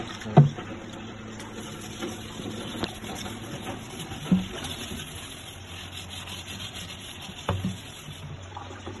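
Hand-scrubbing the glass panes of an aquarium, a steady rubbing and scouring that takes off dried-on algae and salt deposits after an acid soak. A few knocks break in, the loudest about half a second in and others near the middle and near the end.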